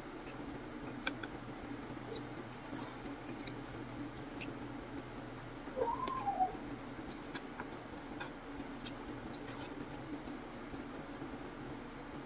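Close-up eating sounds: soft chewing and small scattered clicks from wooden chopsticks working noodles in a paper takeout box, over a steady low hum. A short pitched sound sliding down in pitch comes about six seconds in.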